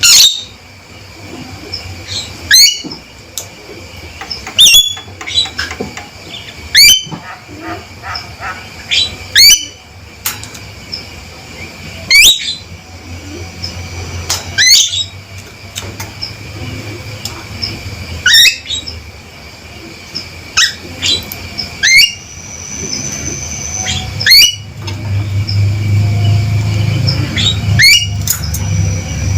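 Male Javan myna (jalak kebo) giving loud, sharp calls, about one every two seconds, each a quick sweeping note. A low steady hum builds beneath the calls in the last few seconds.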